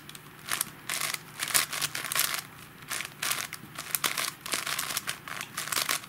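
7x7 Rubik's cube being twisted by hand: irregular runs of quick plastic clacks as the layers turn through an edge-parity algorithm.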